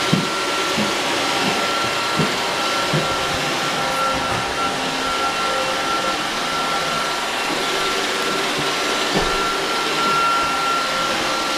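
Roomba robot vacuum running: a steady whirring hum with a thin high whine, and a few soft knocks in the first few seconds.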